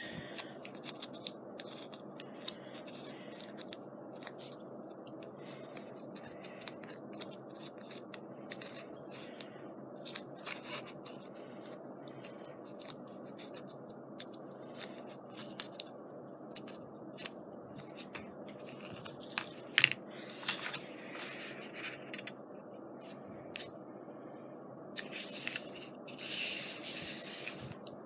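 Scrapbook paper being handled and pressed flat: scattered light clicks and scrapes of paper and card over a steady low hum, with one sharper click partway through and a longer rustling scrape near the end.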